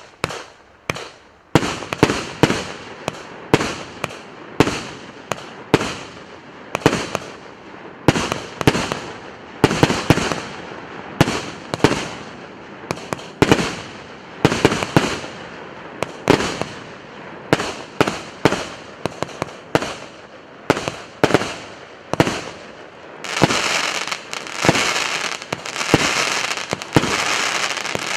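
A consumer fireworks cake, a 49-shot battery of 1.2-inch tubes, firing shot after shot at about two sharp reports a second, each followed by a short fading tail. In the last few seconds a dense crackling joins the shots.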